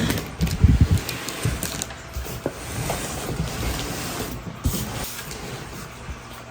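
A large cardboard box being handled and turned over: a few heavy knocks near the start, then steady rustling and scraping with occasional sharp ticks.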